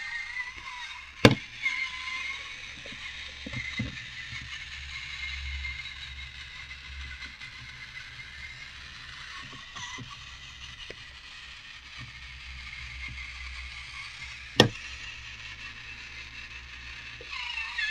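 TOMY FlipBot toy robot running on a wooden tabletop: the steady, wavering whir of its small electric motor driving a plastic gear train and worm drive, working again with its cracked gears repaired. Two sharp clacks, about a second in and near the end, as the robot tips over onto the table.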